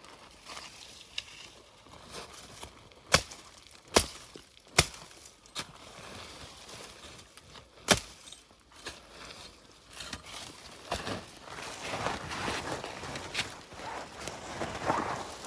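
Sharp single cracks of wooden sticks being cut for a trap cubby, a second or more apart. Near the end comes a louder spell of crunching and rustling as the brush and sticks are handled and trampled.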